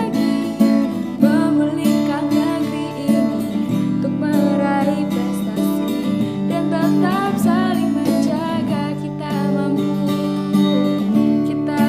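Background music: strummed acoustic guitar with a sung or melodic line over it.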